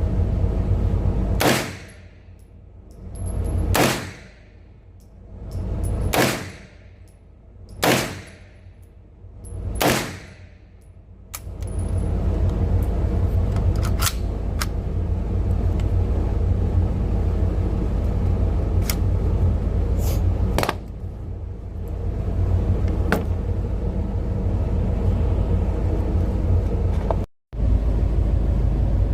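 Five single shots from an MP5-clone pistol-caliber carbine, about two seconds apart, each followed by a brief ring-out. A steady low rumble fills the rest, with a few faint clicks.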